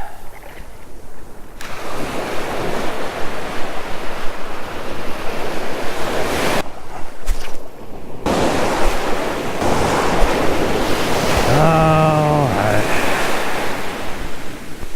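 Ocean surf breaking and washing up the beach in swells, with wind on the microphone. About twelve seconds in, a short pitched call sounds for about a second.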